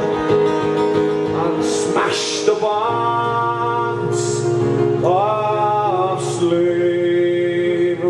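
A man singing a ballad live, accompanying himself on a strummed acoustic guitar, with long held notes.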